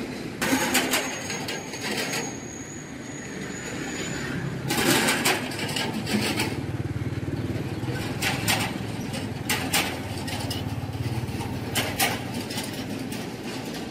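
A motor vehicle engine running nearby, with a low steady hum loudest in the middle, over outdoor noise broken by several short loud bursts.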